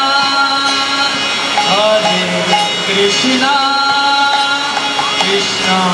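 Devotional kirtan: voices singing over a harmonium's sustained chords.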